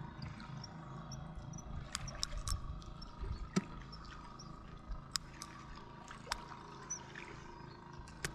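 Light water sounds and scattered sharp clicks over a faint steady hum, as a silver bream is played and landed on a fishing line.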